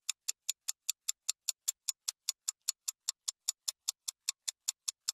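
Rapid, evenly spaced clock-like ticking, about five ticks a second: a sound effect marking sped-up, fast-forwarded footage.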